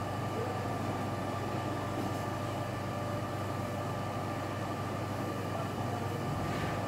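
Steady low mechanical hum with a hiss and a faint constant whine, unchanging throughout.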